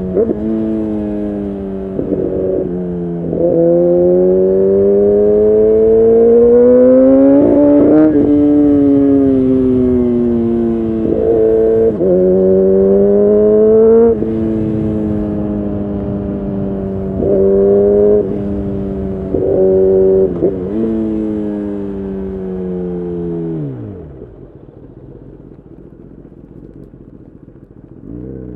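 2011 Kawasaki ZX10R's inline-four engine through a decat Leo Vince exhaust, revving up and shifting gears repeatedly, its pitch climbing and dropping at each shift. About 24 seconds in the revs fall away and it runs quieter, then picks up again at the very end.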